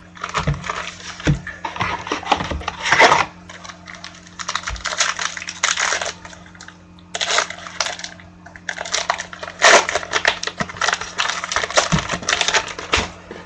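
Trading cards and their plastic packaging being handled: crinkling and rustling with small clicks, in several spells with short pauses between.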